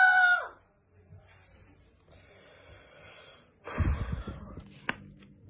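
A high, held vocal cry that breaks off about half a second in. Then a short, loud rush of breathy noise with a low rumble about four seconds in, and a single click just after.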